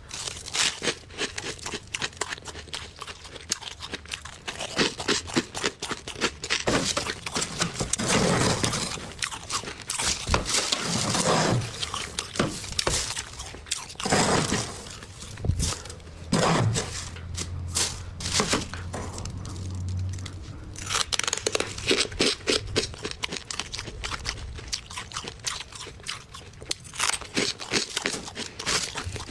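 Metal scraper crunching and scraping through thick frost built up on a freezer's walls, in a quick, uneven run of strokes. Now and then a plastic bag crinkles as chunks of frost are put into it.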